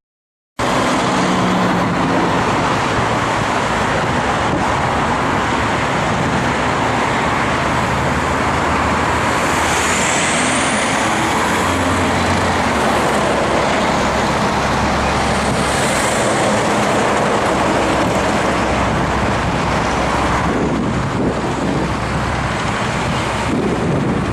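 Loud, steady road traffic noise of passing cars and trucks, with engine hum and tyre noise, starting abruptly about half a second in.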